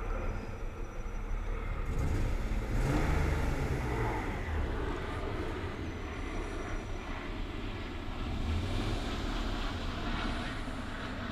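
BMW E36 328i's 2.8-litre inline-six running at idle with a misfire logged by the scanner, growing louder for a couple of seconds about two seconds in. The owner suspects low fuel pressure or faulty O2 sensors.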